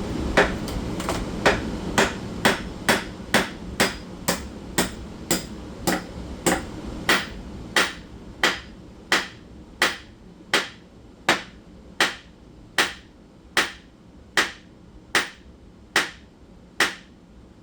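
Hammer blows: a long, steady run of sharp strikes, about two a second at first and slowing a little toward the end.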